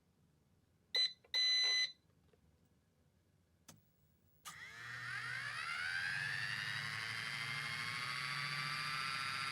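Two electronic beeps, the second longer, then an RC helicopter's electric motor spooling up: a whine that climbs in pitch and settles into a steady high whine as the rotor reaches speed.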